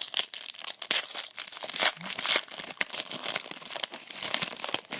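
Crinkling and tearing of a trading-card pack's wrapper as it is torn open, a dense run of sharp crackles.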